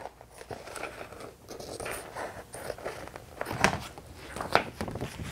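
Scissors snipping through a sheet of plastic report cover to cut out an eye hole, with the crackle of the sheet being handled. The snips come irregularly, the two loudest about three and a half and four and a half seconds in.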